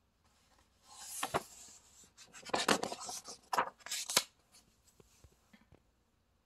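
A glossy picture-book page being turned by hand: paper rustling, with several crisp snaps between about one and four seconds in.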